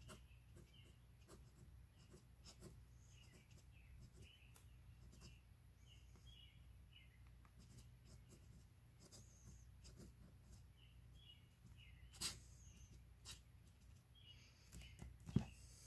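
Faint scratching of a vintage Wahl fountain pen's nib on paper as a word is written in flourished script, with a couple of sharp clicks, one about twelve seconds in and a louder one near the end.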